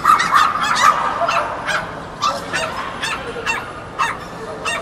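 Small dogs yapping, a rapid run of short, sharp yips about three a second, some overlapping.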